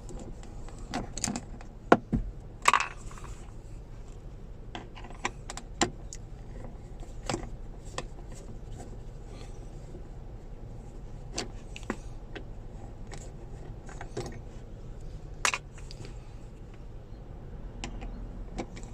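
Irregular clicks and knocks of hard plastic parts being handled and fitted as a new centre console armrest lid is put in place, with a few louder knocks.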